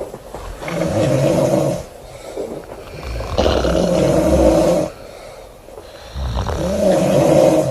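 A sleeping woman snoring loudly: three long snores, one about every three seconds, with quieter breathing between.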